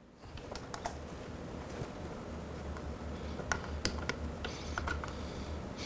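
Scattered light metal clicks and taps of a hand tool turning screws in a handlebar clamp, over a low steady hum.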